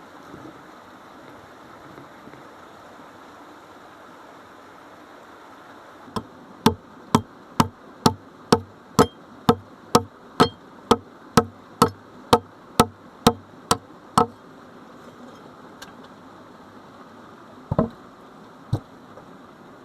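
A steady run of about seventeen sharp striking blows, about two a second, typical of hand tool work such as hammering or chopping. Two more single blows follow near the end, over a faint steady hiss.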